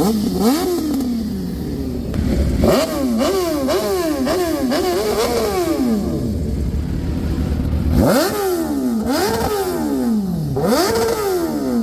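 Superbike engines revved with repeated sharp throttle blips, each rising quickly and falling back slowly. There is one blip at the start, a quick run of about six a few seconds in, and more from about eight seconds in to the end.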